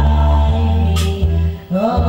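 A woman singing through a microphone and PA over amplified backing music with held bass notes and a drum beat.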